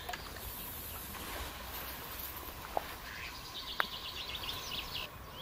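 A songbird singing, with a rapid high trill near the end over steady background noise, and two sharp clicks shortly before it.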